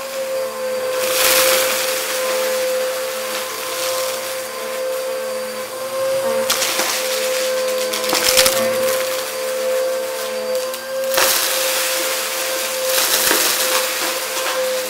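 Bissell upright vacuum cleaner running with a steady motor whine while its brush head sucks up lint, dust and crunchy debris from a carpet. Crackling, rattling surges come as the bits are pulled in: about a second in, in the middle, and again near the end.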